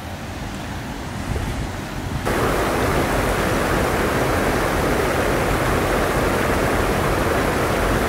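Water pouring over a small concrete dam spillway: a loud, steady rush that starts suddenly about two seconds in. Before it there is fainter wind noise.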